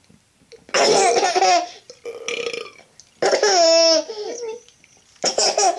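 A toddler's loud burps, about four in a row, mixed with laughter.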